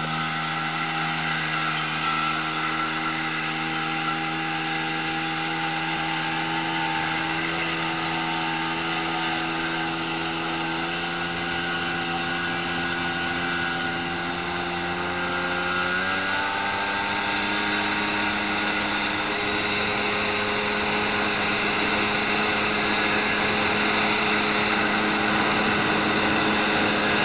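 Motorboat engine running steadily under a hiss, its pitch stepping up about sixteen seconds in as it speeds up.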